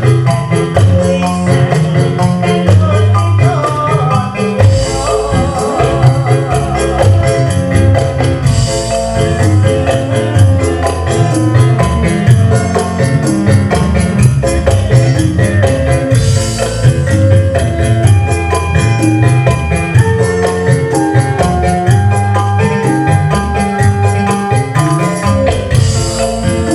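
Live Javanese campursari band music: a fast, steady percussion beat under a melodic instrumental line, with little or no singing.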